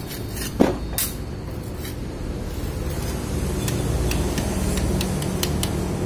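Light metallic clicks and a sharper knock from hand work at a motorcycle's spark-plug hole, the clicks coming in a quick run near the end, over a steady low rumble.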